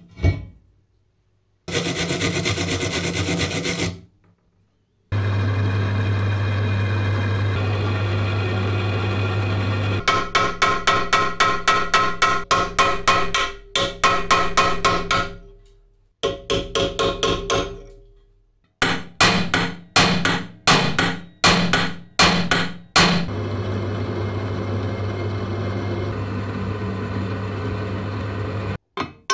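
Metalworking on rusty steel rivets: a steady motor-driven run, then fast, evenly spaced hammer blows on a cold chisel cutting off a rivet head, then slower, ringing hammer blows. Near the end a drill runs steadily as a twist drill bores a rivet out.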